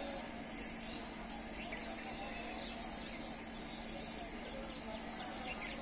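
Quiet rural ambience: a steady insect drone with a few faint bird chirps over a low, steady hum.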